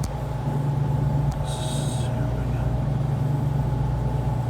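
Steady low mechanical hum of running commercial refrigeration equipment, with a brief hiss about a second and a half in.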